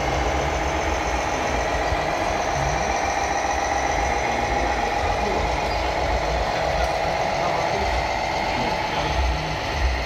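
Radio-controlled Mercedes-Benz Arocs model tipper truck driving slowly, with a steady engine-like running sound.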